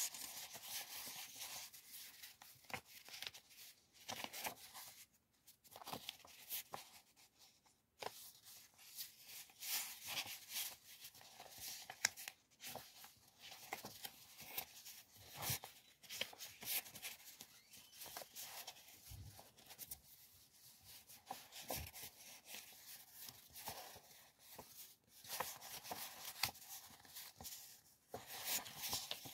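Thin printed decorative paper sheets flipped through and shuffled by hand: faint, irregular crisp rustles and soft flicks, with a couple of brief pauses.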